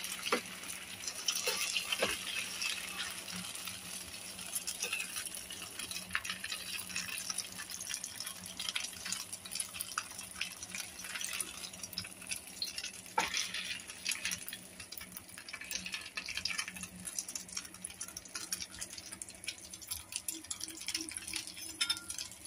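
Oil sizzling and crackling steadily around egg-and-tofu patties shallow-frying in a metal pan. A few sharp clicks of a metal spatula against the pan come through the sizzle, the clearest about thirteen seconds in. A steady low hum runs underneath.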